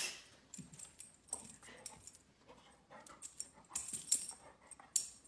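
A dog rummaging among tennis balls, wrapping and cardboard boxes: scattered rustles and light knocks, loudest about four seconds in, with a few short soft dog noises.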